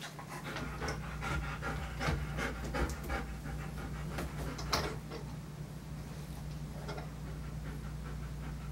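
German Shepherd panting quickly, busiest through the first half, over a steady low hum. There is one sharp knock about halfway through.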